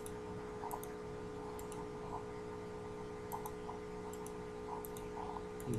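Faint computer mouse clicks, a few short ticks at irregular intervals, some in quick pairs, over a steady low electrical hum.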